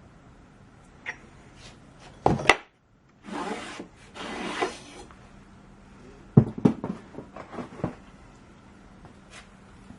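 Handling of the metal winding rod and wire coil against the plywood coil winder: a couple of sharp knocks, then two short scraping rubs, then a quick run of knocks and clicks.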